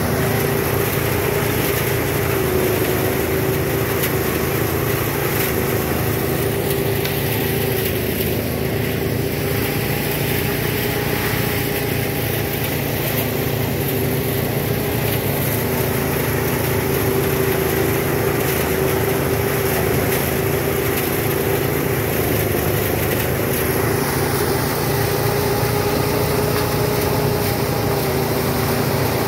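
Small engine of a rice thresher running steadily, its pitch wavering slightly up and down.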